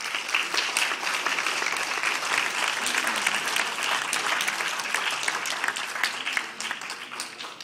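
Audience applauding, many hands clapping at once; it swells at the start and dies away near the end.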